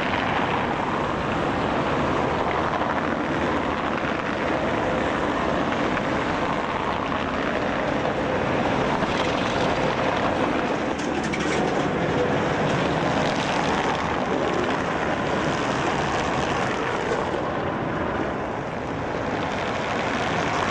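Street traffic noise: a steady rush of cars, and trams among them, going by on a city road.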